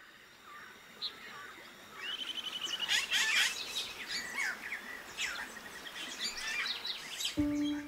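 Many wild birds chirping and calling over one another, with a rapid trill about two seconds in. A low held music note comes in near the end.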